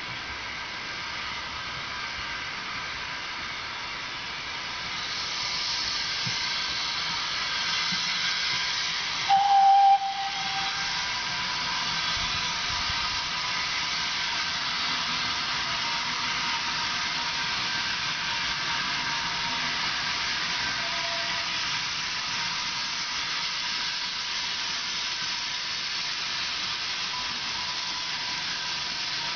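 Steam locomotive hissing steam steadily, growing louder about five seconds in, with one short, loud whistle blast at about nine seconds in.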